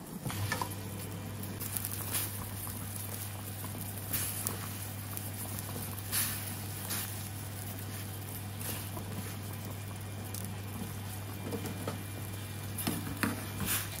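Seafood broth boiling hard in a pot: a steady bubbling patter with a few sharp clicks or splashes scattered through it. A steady low hum runs underneath.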